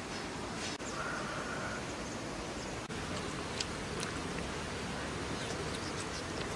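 Steady outdoor background hiss, with a short faint animal call about a second in and a few soft clicks near the middle.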